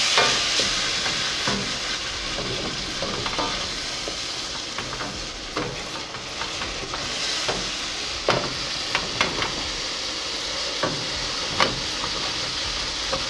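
Thick spiced sauce base frying and sizzling steadily in a stainless steel sauté pan over a gas burner while a wooden spoon stirs and scrapes it, with scattered sharp knocks of the spoon against the pan, more of them in the second half.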